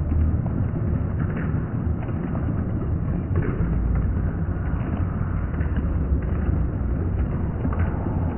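Fireworks going off in a rapid, unbroken barrage, a dense rumble of overlapping booms with sharper cracks scattered through it.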